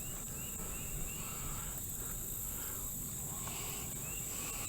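Steady high-pitched insect chorus, with two runs of short, quick chirping notes, one about the first second and one near the end.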